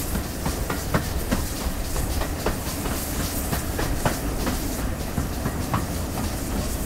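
Cab ride on the footplate of a GWR Collett 0-6-0 goods steam locomotive under way: a steady rumble of the engine and wheels with frequent irregular knocks and clatters from the cab and rail joints, over a faint hiss.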